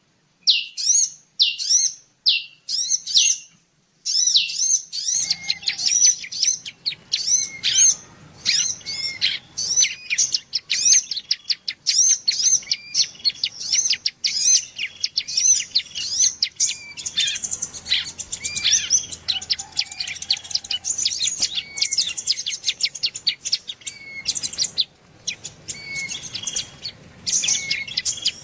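Bird-lure recording of ciblek (bar-winged prinia) and sunbird calls: rapid, high, sharp chirps repeated over and over. The first few seconds hold separate chirps, about two a second; after a short gap about four seconds in, the chirping turns denser and overlapping, over a faint low hum.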